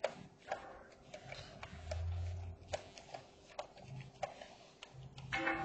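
Irregular small clicks and ticks of a screwdriver working the last screws out of a plastic laptop base, with a louder brief knock and rattle near the end.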